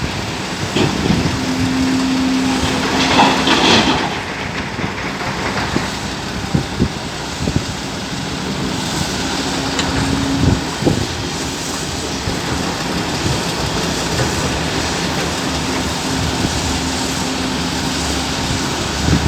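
Large excavator's diesel engine and hydraulics working under load, a steady drone with a held tone that comes and goes three times as the machine cycles. A louder clattering burst about three seconds in and several sharp knocks, as rock is handled in the bucket and dropped into the haul truck.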